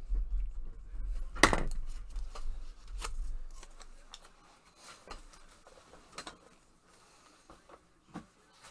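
Scattered light clicks and knocks of things being handled at a desk, with one sharper click about a second and a half in and a low rumble at first, dying down to faint ticks over the last few seconds.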